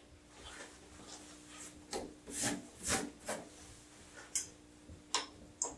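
A grooming brush swept through a Pekingese's long coat in about seven short strokes, the loudest in the middle.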